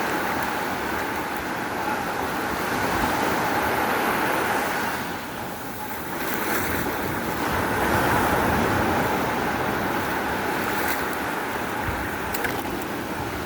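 Sea waves washing onto the shore: a steady rushing that eases a little around the middle and swells again, with some wind on the microphone.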